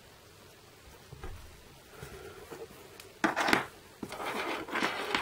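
Hands moving a small iPod Shuffle, its earphones and plastic packaging about on a desk: irregular rustles and scrapes. They are faint at first and grow louder, with a sudden sharp scrape a little after three seconds.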